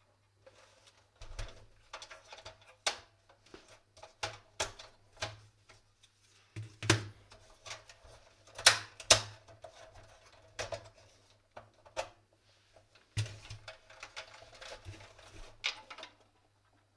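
Irregular clicks, taps and light rattles of plastic and metal parts being handled and clipped on a Dell Optiplex 7090 small-form-factor desktop PC, with a few sharper knocks. A faint steady low hum lies underneath.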